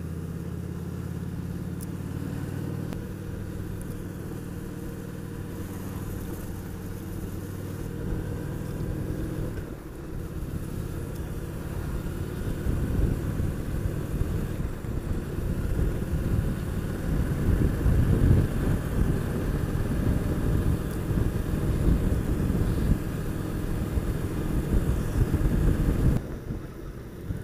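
Honda VT750S motorcycle's V-twin engine running on the move, steady at first. From about ten seconds in it gets louder and rougher as wind noise builds at higher speed, and the sound drops suddenly near the end.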